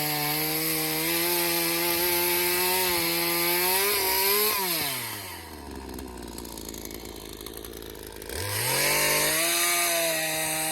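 Two-stroke chainsaw running at high revs. About four seconds in it drops to idle, then it is throttled back up to high revs near the end.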